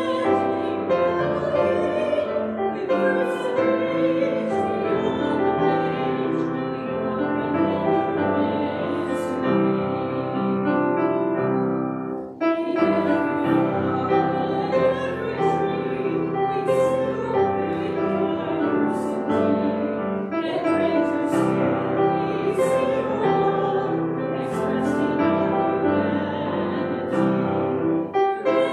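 A church congregation and choir singing a hymn together with piano accompaniment, with a short break between lines about twelve seconds in.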